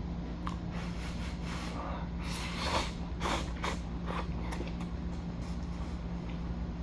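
A person slurping instant cup-ramen noodles from the bowl in several short, noisy bursts, starting about two seconds in, over a steady low hum.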